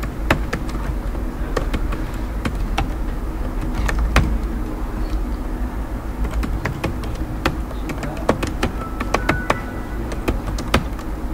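Computer keyboard being typed on: irregular, sharp key clicks over a steady low hum.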